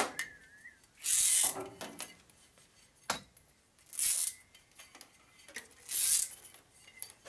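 New 3/4-inch-wide steel bandsaw blade and its plastic tooth sleeving rattling and scraping in the hands as the uncoiled blade is handled, in several short bursts with a sharp click about three seconds in.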